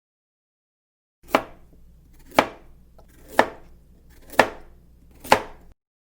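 Five sharp strikes about a second apart, each with a short ring-off, over a faint low hum, cut off abruptly after the last.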